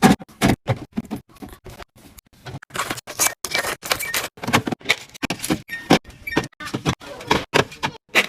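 Containers and packaged food being handled and set down while a fridge is restocked: a quick, irregular run of clicks, taps and clinks.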